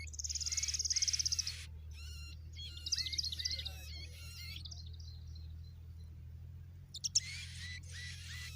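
Baby birds calling: a fast high trill for about a second and a half, then a burst of chirps a second later, with a couple of sharp clicks near the end, over a steady low hum.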